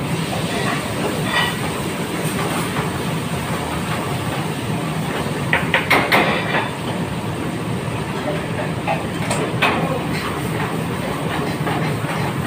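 Commercial kitchen noise: a steady roar with a low hum, broken by a few short, sharp clatters of metal, the loudest about halfway through and another a little later.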